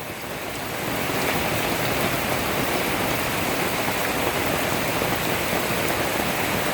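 Heavy rain pouring down in a thunderstorm downpour, a dense steady hiss of rain that swells over the first second and then holds.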